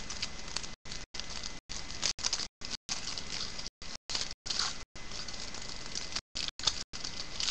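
A trading card pack wrapper being torn open and crinkled by hand: a rustling hiss with sharper crackles, broken up by many brief dropouts in the audio.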